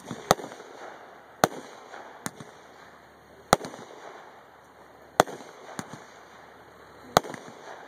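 Mortar-fired aerial firework shells going off: about five loud, sharp bangs at uneven intervals of a second and a half to two seconds, with a couple of fainter pops between them.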